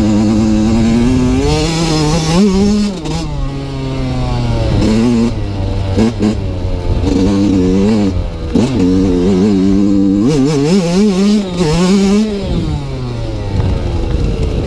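Yamaha YZ125 dirt bike's single-cylinder two-stroke engine under way, revving up and dropping back again and again as the rider accelerates and shifts gears.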